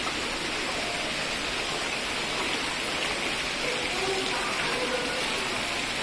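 Water from an artificial stepped waterfall running and splashing down stone steps and a sloped channel, a steady even splashing.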